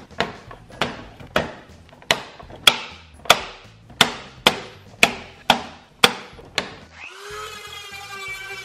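Diagonal cutters snipping through a hard plastic track divider, about a dozen sharp snips roughly two a second. About seven seconds in, a Tacklife rotary tool starts and runs with a steady whine as it grinds the cut edge smooth.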